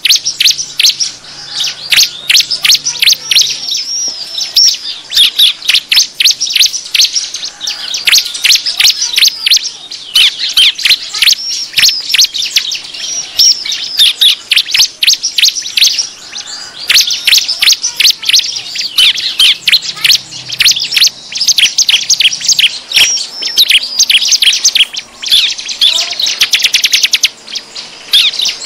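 Prinias (ciblek) calling in rapid, agitated chattering series of sharp high chirps, several birds overlapping, with brief pauses. This is the 'ribut' excited ciblek call used as a lure to draw wild prinias in.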